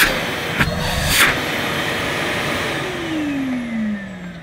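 Numatic Henry vacuum cleaner's 620-watt motor switched off with a click and spinning down: the rush of air fades and the motor's whine falls steadily in pitch near the end. There are a couple of light knocks in the first second.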